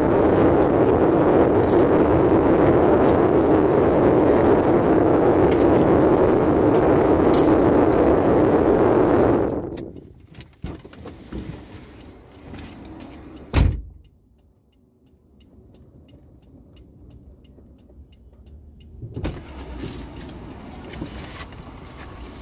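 Steady rushing noise inside a stationary car cuts off abruptly about ten seconds in. A few seconds later a single loud thump sounds, a car door shutting.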